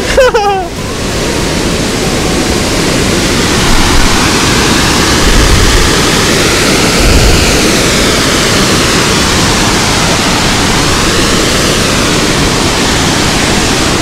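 Large multi-tiered waterfall, a loud steady rush of falling water, with a couple of brief low rumbles a little past the middle.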